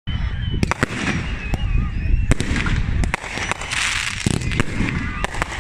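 Fireworks display: a rapid run of sharp cracks and bangs over a continuous low rumble, with a denser burst of crackling about four seconds in.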